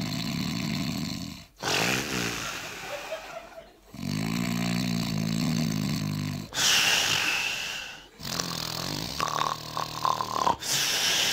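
A man imitating slow, rhythmic snoring with his voice: three long rasping snores on the in-breath, each followed by a breathy out-breath, one of them with a high hiss.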